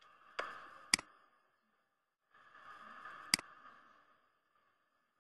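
Computer mouse button clicking sharply, once about a second in and again a little past three seconds, over a hiss that comes and goes.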